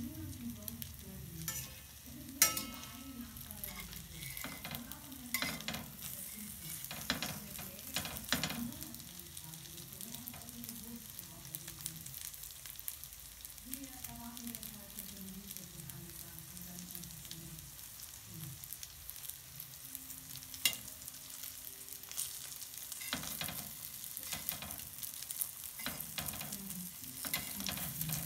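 Meat patties frying in a little oil in a stainless steel pan: a steady soft sizzle broken by a few sharp pops of spitting fat, the loudest about two and a half seconds in and again around twenty seconds in.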